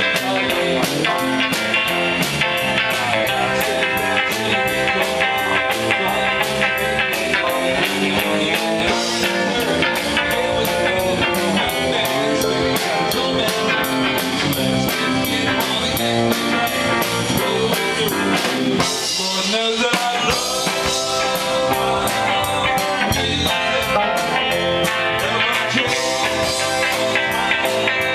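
Live rock band playing a blues-rock number with electric guitar, bass guitar, keyboard and drum kit, over a steady beat.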